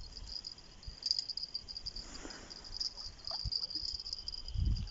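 Crickets chirring in a steady high-pitched trill, with low wind rumble on the microphone that grows louder near the end.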